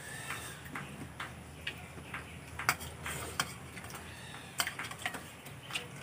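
Eating at a table: irregular light clicks and taps of metal spoons against plates and bowls, with chewing.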